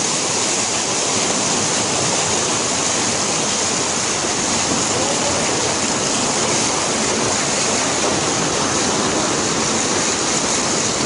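Floodwater rushing steadily along a street in a strong, even torrent. The current is strong enough to push a car.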